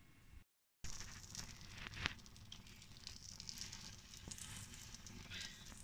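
Melted butter sizzling and crackling in a hot grill pan as a sandwich is pressed down into it, starting suddenly just under a second in, with a sharper click about two seconds in.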